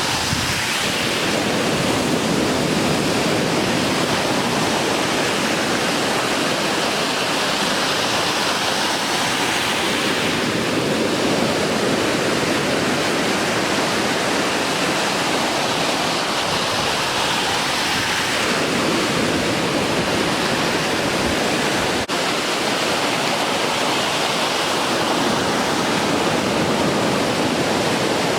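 Heavy post-typhoon surf breaking and washing ashore in a continuous rush, surging louder about every eight seconds as sets of waves break.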